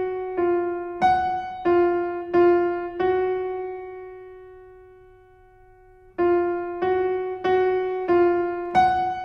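Background music on a keyboard with a piano-like sound: a short phrase of struck notes, one long note left to fade away, then the same kind of notes start again about six seconds in.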